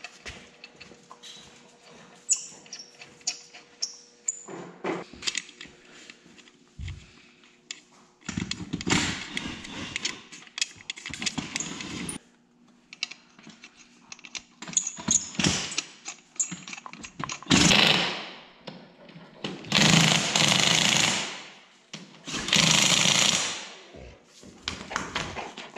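Cordless power driver spinning lug nuts onto an ATV wheel in about five short bursts, the longer ones near the end. Before that come light metallic clicks and taps as the nuts are started by hand.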